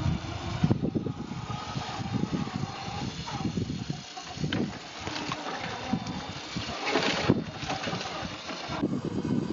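RC scale Willys jeep driving over rough ground: its motor runs with a faint whine, under frequent crackling and knocking from the tyres and chassis on dirt and stones.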